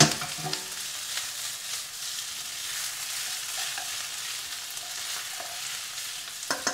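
Whole forked potatoes frying in an onion and turmeric masala with mustard oil in a frying pan, sizzling steadily as they are stirred and tossed with a wooden spatula.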